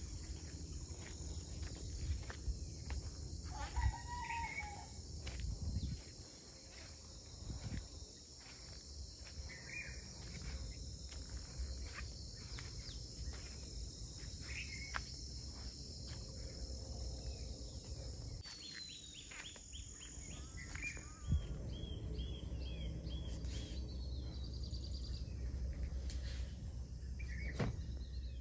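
Outdoor ambience: a steady high drone of insects, with scattered bird calls, including a quick run of short repeated notes a little past the middle. A low wind rumble on the microphone covers the first few seconds and returns in the second half.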